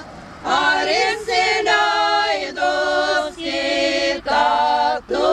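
Women's voices singing a Lithuanian folk song unaccompanied, several voices together in short phrases of held notes with brief breath breaks between them.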